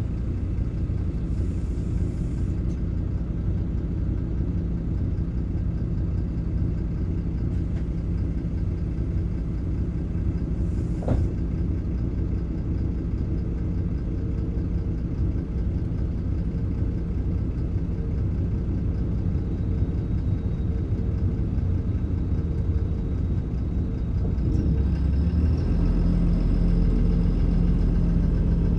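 MAN Lion's City LE city bus heard from inside while driving: a steady engine and drivetrain rumble with road noise. A single click about eleven seconds in, and the engine pulls harder and louder near the end.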